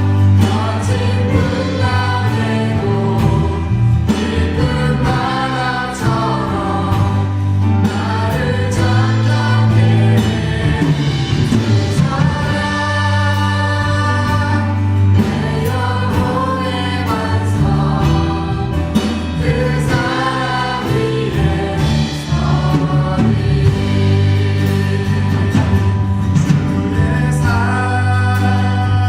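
A church praise band and singers performing a worship song together: several voices singing over a band, with a strong bass line and drums.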